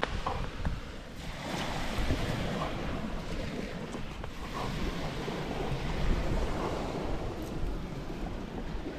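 Sea waves washing onto a sandy beach, with gusty wind buffeting the microphone.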